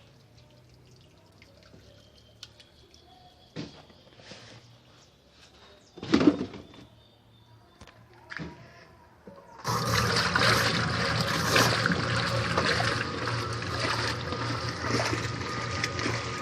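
A few scattered knocks and clunks, the loudest about six seconds in, then about ten seconds in a Mueller Plus washing machine starts up suddenly and keeps running: a steady motor hum under loud rushing, churning water.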